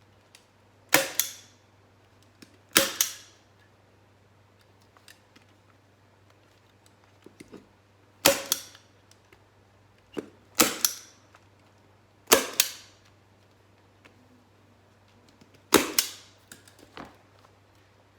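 Hand staple gun firing staples to fix plastic sheeting over a crate seat: a sharp snap every few seconds, about eight in all, some in quick pairs.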